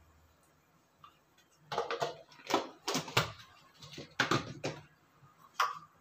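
A quick, irregular run of clicks and knocks from kitchen utensils being handled at a gas stove, starting about a second and a half in, with one last knock near the end.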